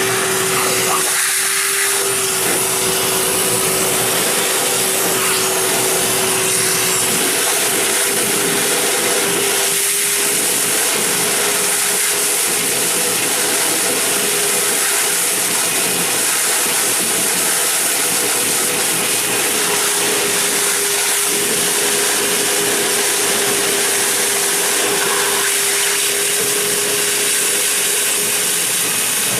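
Wet/dry shop vac running steadily on suction, a steady motor whine over a loud rush of air, pulling the clog out of a bathroom sink drain.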